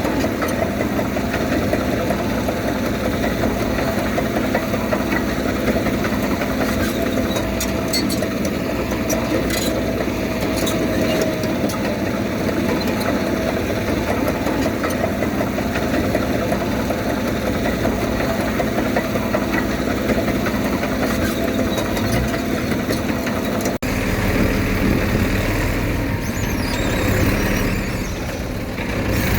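Diesel engine of heavy earthmoving machinery running steadily. A few faint clicks come through about eight to ten seconds in, and near the end the engine sound changes suddenly, as at a cut to another shot.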